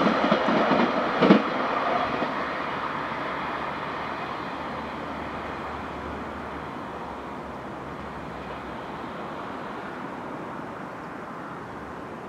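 Class 158 diesel multiple unit moving away along the track, its engine and wheel noise fading steadily as it recedes. One sharp clack from the wheels on the rails about a second in.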